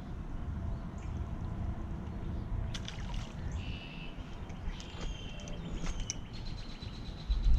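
Outdoor creek ambience: a steady low rumble of moving water or wind, with faint bird chirps in the middle, a few light clicks, and a thump near the end.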